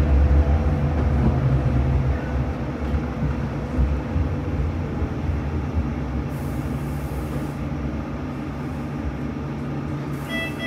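Tram running along the line, heard from inside the car: a steady low rumble of motors and wheels on rail with a faint steady hum, easing a little after about two seconds.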